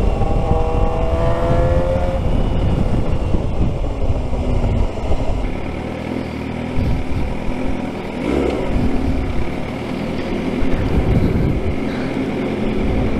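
Suzuki GSX-R 600 inline-four engine accelerating with a rising whine in the first two seconds, then running at low revs as the bike slows and rolls in at low speed.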